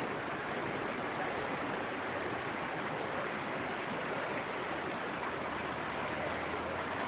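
Rushing water of a stream or river, a steady even rush with no breaks.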